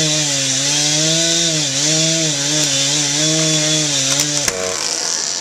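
Chainsaw running at high revs while cutting cherry wood, its pitch dipping and recovering with the load, then cut off abruptly about four and a half seconds in, followed by a few light knocks.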